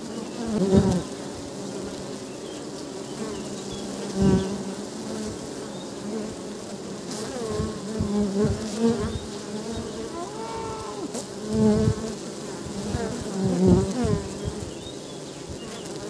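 Many honeybees buzzing at their hives in a steady hum. Several times single bees fly close past and the buzz swells, its pitch bending as each one goes by.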